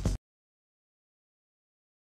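Dead digital silence, after a brief sound cuts off abruptly right at the start.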